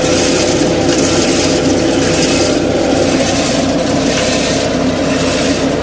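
KF-601 tractor-driven nut harvester running steadily: a tractor engine's hum under a loud, even rushing noise that swells and fades gently about once a second.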